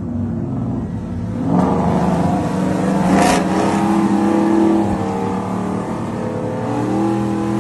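Pickup truck V8 engines under hard acceleration in a roll race. The pitch climbs, drops about five seconds in, then climbs again, with a brief loud burst about three seconds in.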